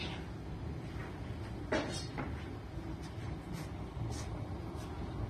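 A brief light knock a little under two seconds in, over low steady room noise and a few faint short rustles.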